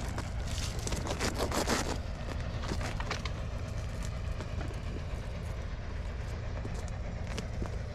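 Strong wind buffeting the microphone: a steady low rumble, with dense crackling and rustling over it for the first two seconds.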